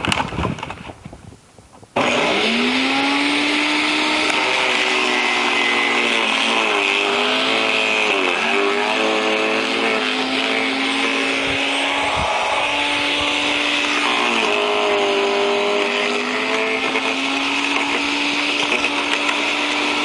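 A garden branch shredder's motor starts abruptly about two seconds in after a brief fading clatter. It spins up to a steady hum, and its pitch sags several times as it comes under load.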